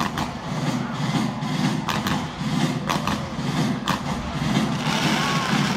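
Fireworks display: sharp bangs of bursting shells about once a second over a dense, steady rumble, with a hissing crackle building near the end.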